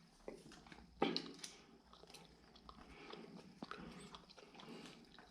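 Faint scattered clicks and light rattles, with one sharper click about a second in: a Yamaha R1 clutch lever being pulled and let back to check its free play before the clutch engages.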